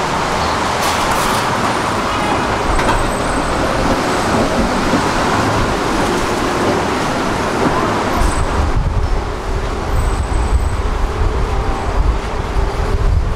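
Tram and street traffic noise, a steady dense rumble. About nine seconds in, it turns to a deeper low rumble with a faint steady hum.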